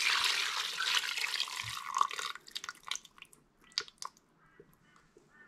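Red wine poured from a frying pan into a slow cooker pot: a steady splashing pour for about two and a half seconds, then scattered drips and small splashes as the pan drains.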